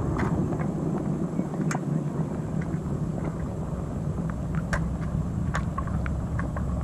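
A conibear body-grip trap is lifted and moved through shallow ditch water by hand, giving scattered light clicks and knocks over a steady low rumble.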